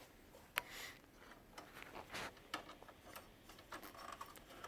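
Scattered light plastic clicks and taps, with one sharp click about half a second in, from handling the tray 2/3 pickup roller and its white locking tabs in an HP LaserJet Pro 400 M401 laser printer.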